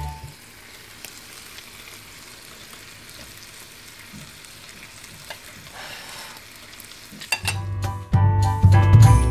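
Lamb skewers sizzling on the hot ribbed plate of a Cuisinart Griddler electric contact grill: a steady fine sizzle with a few small pops. Music comes back in near the end.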